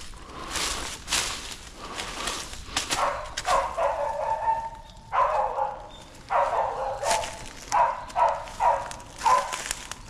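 Hunting dog barking in a run of about seven barks, starting about three seconds in, deep and full for a small dog: the bay of a dog that has roused a wild boar. Footsteps crunch through dry leaves and twigs throughout.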